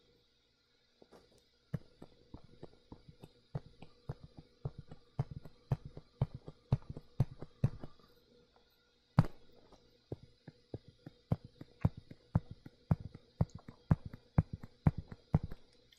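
Stylus tapping and clicking against a drawing tablet as lines are drawn by hand, a series of short clicks a few times a second with one louder knock about nine seconds in.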